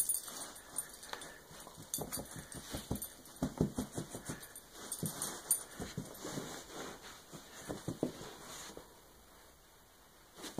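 A beagle growling and whining in short irregular bursts while playing tug with a rope toy, falling quiet near the end.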